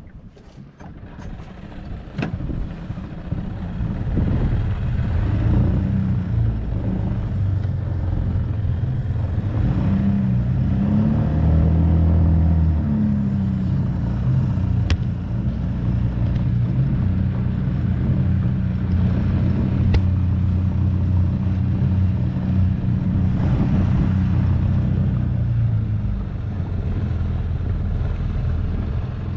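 Small fishing boat's outboard motor running under way, picking up speed over the first few seconds. Its pitch rises and dips briefly around ten to thirteen seconds in, then it holds a steady cruise, with wind and water rushing past the hull.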